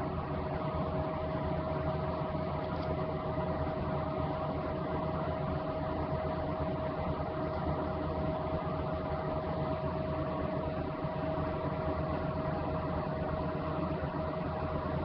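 A steady mechanical hum with one constant mid-pitched whine running through it.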